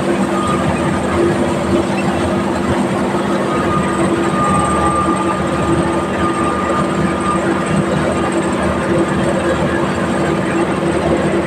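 A machine engine running steadily with an even, unbroken drone and no change in speed.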